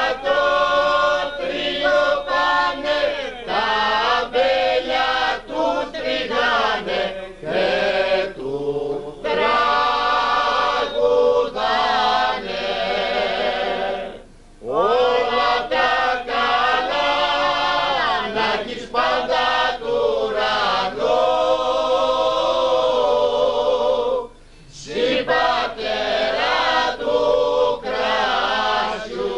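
A group of men singing a Greek song together in long, wavering phrases, with two short breaks about 14 and 24 seconds in.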